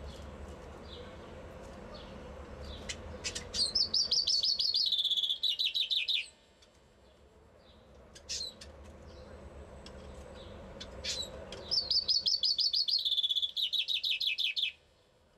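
Caged common chaffinch singing its song twice, each phrase a fast run of notes falling in pitch and ending abruptly, the second about eight seconds after the first. A few short soft notes come before the first phrase.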